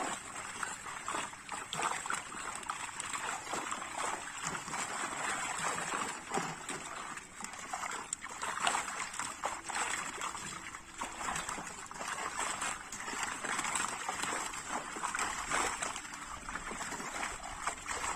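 Continuous irregular splashing and sloshing of a dense catch of live fish thrashing in a seine net in shallow water as they are handled and scooped out by hand.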